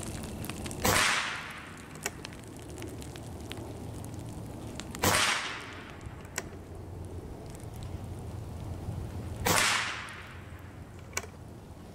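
Evanix Hunting Master AR22, a regulated revolver-style PCP air rifle, fired three times about four and a half seconds apart, each shot a sharp crack with a short fading tail. A fainter click follows each shot a second or so later.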